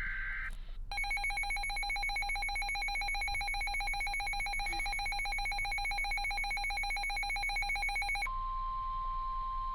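NOAA Weather Radio emergency alert tones. A brief burst of SAME data tones comes first, then the buzzy two-tone EAS attention signal for about seven seconds. About eight seconds in, it switches to the single steady 1050 Hz weather-radio warning tone, which signals that a warning is about to be read.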